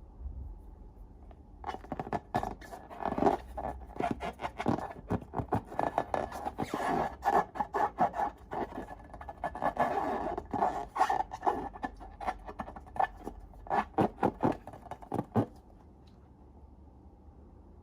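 Slime being worked, a dense run of sticky clicks and crackles starting about a second and a half in and stopping near the end.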